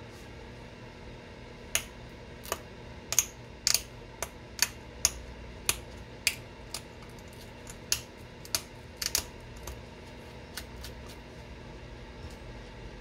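Flintknapping a stone point: about twenty sharp, irregularly spaced clicks as small flakes snap off its edges, starting about two seconds in and stopping about two seconds before the end.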